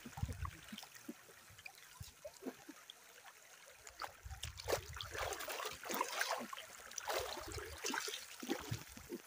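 Faint splashing and sloshing of shallow river water around a person's legs as he wades, quiet at first and busier from about four seconds in, with low rumbles on the microphone.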